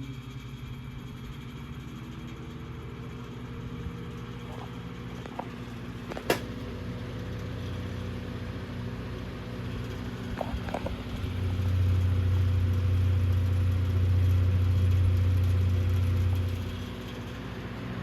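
Emerson 29668 table fan running on low: a steady electric motor hum. There is a sharp click about six seconds in, and a louder low drone swells in after about eleven seconds and drops back about a second before the end.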